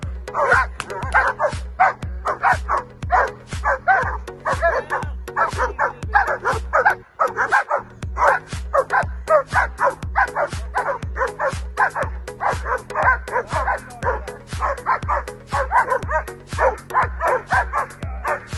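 German Shepherd dogs barking hard and repeatedly while straining on leashes during bite-work protection training, over background music with a steady beat.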